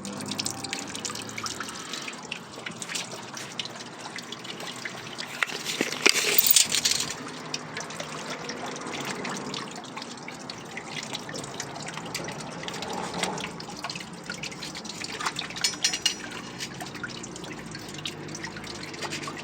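Water from a leaking 12-inch water main trickling and dripping, with a louder rush of water about six seconds in.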